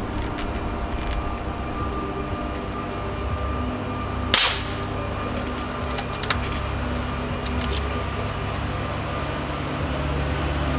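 A single shot from a Vulcan 3 5.5 mm PCP air rifle, tuned to over 110 foot-pounds, about four seconds in: one sharp, loud crack. A couple of light clicks follow about two seconds later, over a steady low hum and faint bird chirps.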